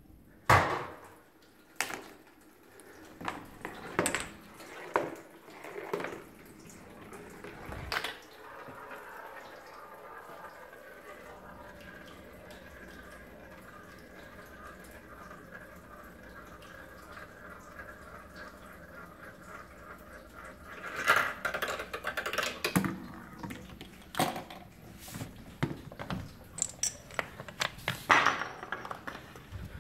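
Homemade Rube Goldberg machine running. First come a string of separate knocks and clacks as pieces drop and strike. Then a steady stretch of rolling noise lasting about twelve seconds. Then two flurries of rapid clattering clicks from small hard pieces such as toppling dominoes.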